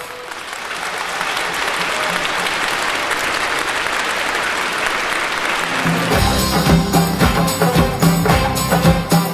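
Audience applauding for about six seconds. Then a band starts an instrumental intro with a steady low note and drum beats.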